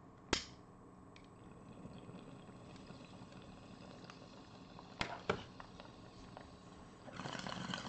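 A lighter clicks once near the start and twice more around the middle, then water bubbles through a glass bong as smoke is drawn through it. The bubbling is loudest for about a second near the end.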